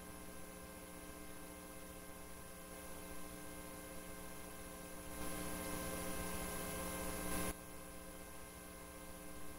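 Faint steady electrical hum with background hiss. Slightly past halfway, the hiss grows louder for about two seconds, then cuts off suddenly.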